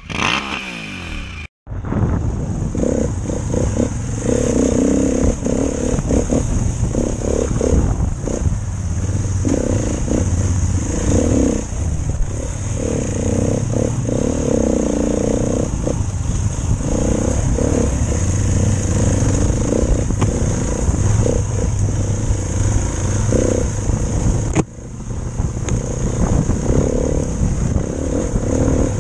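Off-road motorcycle engine running on a dirt trail, its note rising and falling with the throttle, over a steady wind hiss on the microphone. The sound cuts out abruptly about a second and a half in, and changes suddenly again near the end.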